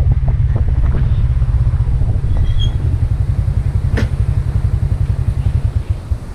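Motorbike engine running with a dense, pulsing low rumble that dies away near the end. A single sharp click comes about four seconds in.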